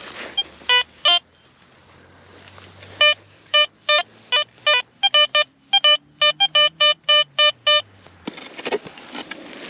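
Garrett Vortex VX9 metal detector sounding a target tone: two short beeps about a second in, then a quick, uneven string of short beeps of one mid pitch as the coil is swung back and forth over a target.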